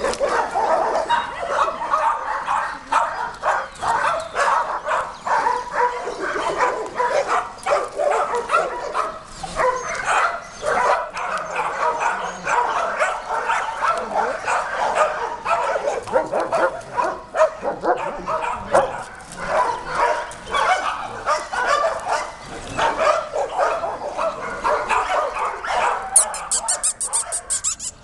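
Many dogs barking and yapping at once, a continuous din of overlapping barks with no let-up.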